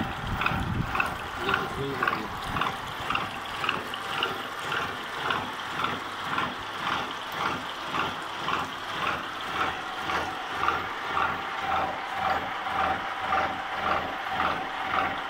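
Universal milling machine running while it mills helical gear teeth on a long steel shaft, with an even pulsing beat about twice a second.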